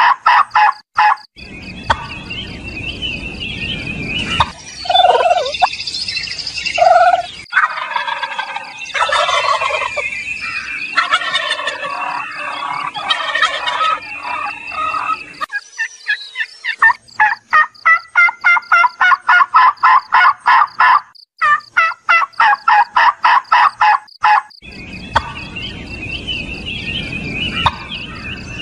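Domestic turkey toms gobbling, each gobble a fast rattling run of notes, heard near the start and again repeatedly in the second half, with other turkey calls in between. Stretches of low rumbling noise come in a couple of seconds in and near the end.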